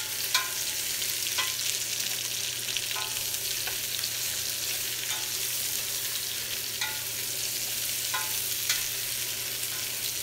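Diced potatoes, onions and carrots sizzling in olive oil in a stainless steel pot, sautéing until the onion is tender. A utensil stirs them and clinks against the pot's side about every second with a short metallic ring.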